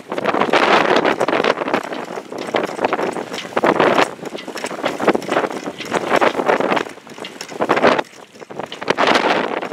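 Strong wind buffeting the microphone, the rushing noise swelling and dropping in gusts every second or two.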